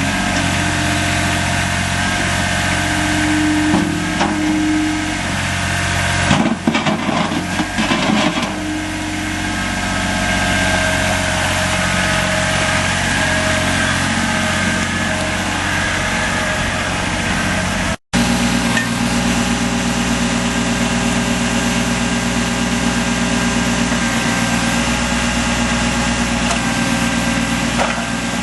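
Kubota B21 tractor loader backhoe's three-cylinder diesel engine running steadily, with a few seconds of irregular knocking and rattling about a quarter of the way in. The sound cuts out for an instant about two-thirds through, then the engine carries on with a steadier, lower note.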